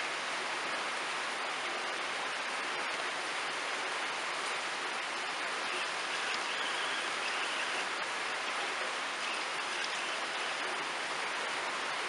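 Steady rain falling outside the porch, an even hiss with no breaks.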